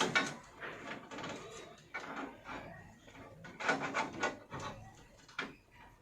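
Irregular rubbing, scraping and light clicking as computer parts and cables are handled inside a PC case during assembly.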